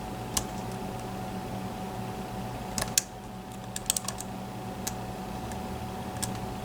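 Sparse, irregular metal clicks of lock picks and a tensioner working inside a Mul-T-Lock MT5+ cylinder, with a small cluster about four seconds in, over a steady low hum.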